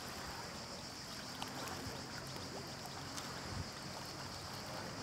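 Jet ski engine humming faintly under a steady hiss of water.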